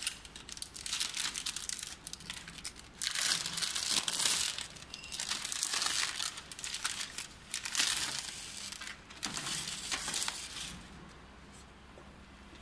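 Plastic packaging film crinkling in irregular bursts as it is handled and pulled through the film rollers of a packing machine. It is loudest in the middle and dies down near the end.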